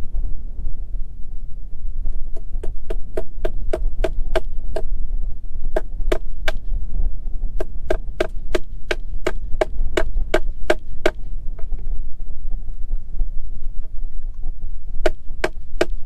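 Hammer blows driving a fastener into a wooden fence brace post: quick, evenly spaced strikes, about three or four a second, each with a short ring. They come in four runs separated by pauses, the longest in the middle.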